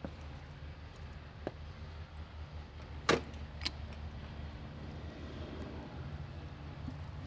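Steady low rumble of outdoor background noise. A loud sharp click comes about three seconds in, with a softer one just after.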